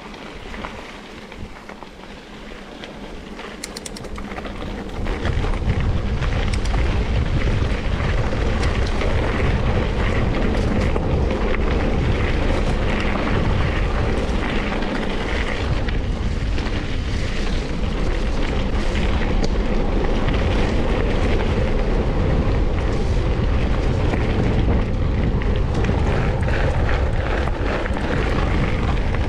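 Wind buffeting the microphone of a riding mountain biker's camera, with the bike's tyres rolling over a dirt and gravel track. The rumble grows over the first five seconds, then holds steady and loud.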